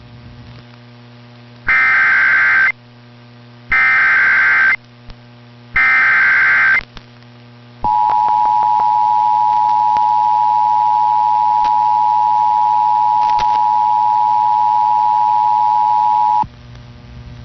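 Emergency Alert System broadcast tones: three one-second bursts of warbling digital header data, then the two-tone EAS attention signal held steady for about eight and a half seconds, over a low mains hum. Together they mark the start of an EAS activation.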